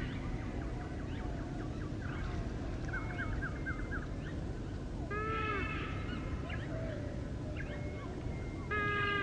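Mixed wetland birdsong from several birds at once: runs of short chirps and quick trills, with a louder drawn-out call about five seconds in and another near the end, over a steady low rumble.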